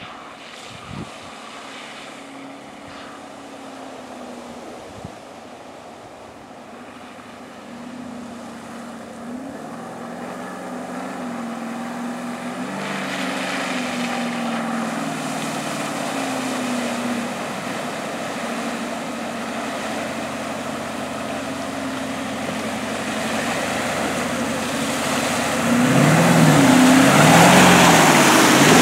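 A 2004 Porsche Cayenne Turbo's twin-turbo 4.5-litre V8 running as the SUV drives through muddy water, its revs rising and falling and growing steadily louder as it approaches. Near the end it passes close by, with the engine at its loudest and water and mud splashing off the tyres.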